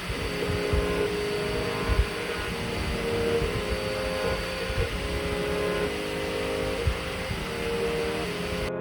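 3D printer running: its stepper motors whine in steady tones that jump to new pitches every second or so as the head changes moves, over a mechanical hum.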